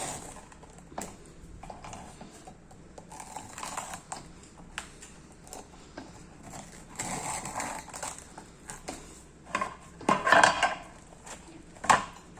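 Scattered light taps, knocks and rustling from handling the flatbread and utensils at the griddle, with a louder clatter about ten seconds in and another knock near the end.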